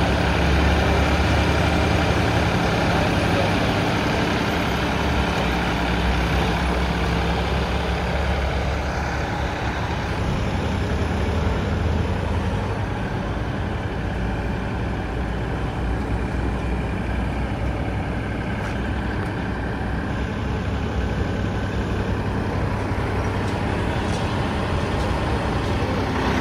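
Tractor diesel engine running steadily, with a continuous low hum that eases slightly about halfway through.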